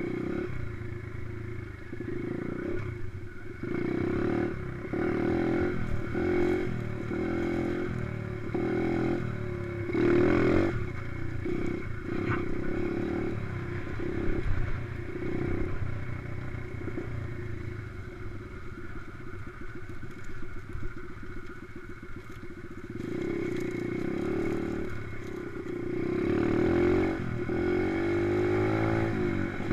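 Dirt bike engine ridden over rough ground, the throttle opening and closing so the revs rise and fall in repeated surges. The loudest surge comes about ten seconds in, and a long rising rev comes near the end.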